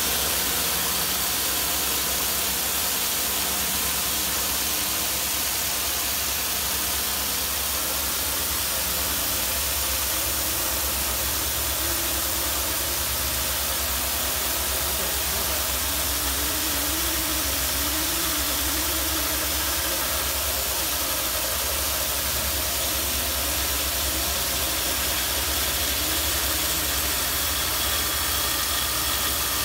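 A drain-descaling machine running steadily, with a continuous hiss of spray as it works through a rust-caked 4-inch cast iron drain pipe to resurface the inside.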